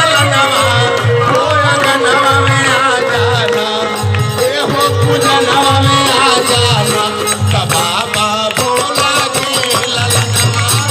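Devotional folk music: a hand drum keeps a steady beat about twice a second under a wavering melody, with jangling metal percussion throughout.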